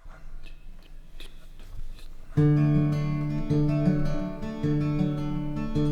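Song intro on acoustic guitar with plucked notes, quiet at first. About two and a half seconds in it turns suddenly louder and fuller, with sustained low notes under the guitar.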